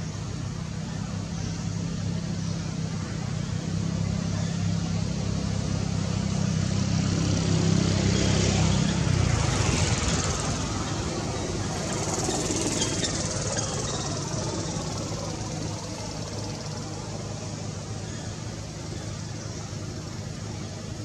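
A motor vehicle's engine humming steadily and growing louder, then dropping away about nine seconds in, followed by a broad rushing noise that swells twice and fades.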